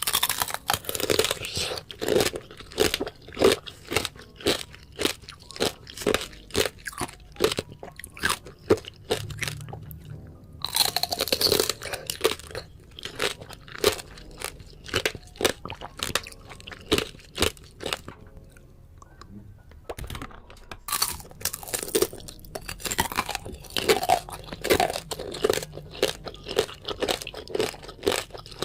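Close-up crunching and chewing of fresh fruit: bite after bite of crisp crunches in quick succession, easing to a short lull about two-thirds through before the crunching starts again.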